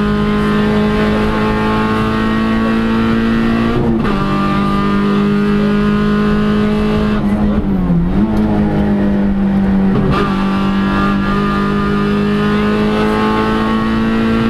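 VW Polo rally car's engine running hard under load, heard inside the cabin, its pitch climbing steadily as it pulls. The pitch drops sharply at gear changes about four and ten seconds in, with a brief dip near eight seconds.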